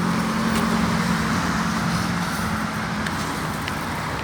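Road traffic noise from passing vehicles: a steady rush with a low engine hum that fades out a little past halfway.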